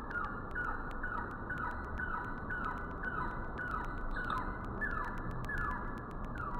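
A repeated animal call: short notes, each falling in pitch, about two a second, over a steady background hiss.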